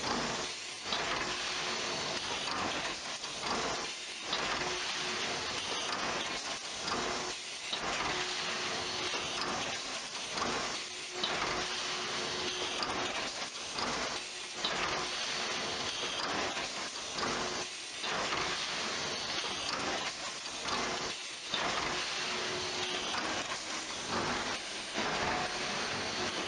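Big-bag packing machine and palletizer line running: a dense, steady hissing machine noise with frequent brief dips and a faint hum that comes and goes.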